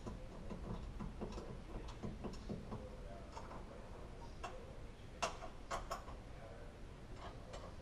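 Faint clicking of a ratchet wrench tightening the bottom bolt of the door glass's rear track inside a car door, with a few sharper clicks about five to six seconds in.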